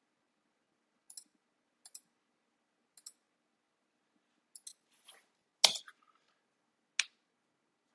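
Scattered clicks of a computer mouse and keyboard: a few faint, spaced clicks, then louder ones after about five seconds, the sharpest a little past halfway.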